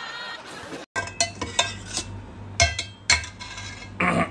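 Clinks of utensils against a steel plate during a meal: about eight short, sharp metallic clicks at uneven spacing, over a low steady hum.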